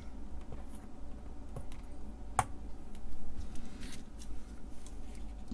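A few small clicks and taps from handling DIP integrated circuits and pressing one into its socket on a circuit board, with one sharper click about two and a half seconds in.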